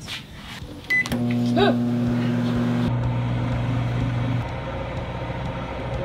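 A microwave oven's keypad beeps once about a second in, then the oven starts running with a steady electrical hum and fan noise. The hum turns duller about three seconds in.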